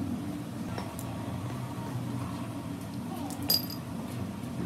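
Steel parts of a tapered roller bearing being handled and rubbed clean in a rag: a couple of light clicks about a second in, then one sharp metallic clink with a brief high ring about three and a half seconds in, over a steady low hum.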